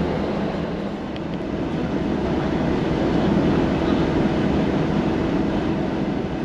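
Steady running noise of a moving vehicle: a constant low hum with an even rushing noise over it.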